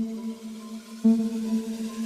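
Background electronic music: a soft, held synth note with overtones, struck again about a second in.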